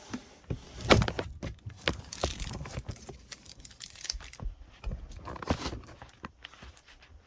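A cardboard shipping box being opened by hand, with irregular knocks, scrapes and rustling of cardboard and packing material that taper off near the end.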